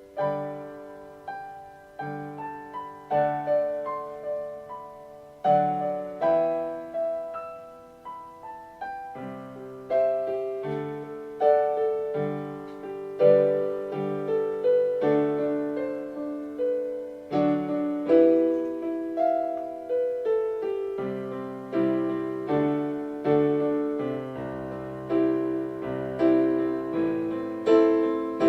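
Piano playing an instrumental interlude of chords and melody, with no singing. Each note is struck and left to fade, about one or two chords a second.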